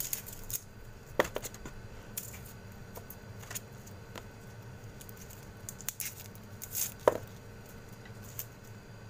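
Garlic bulb being broken apart by hand: dry papery skin crackling and cloves snapping loose in scattered clicks and crinkles. The sharpest snaps come about a second in and again around seven seconds.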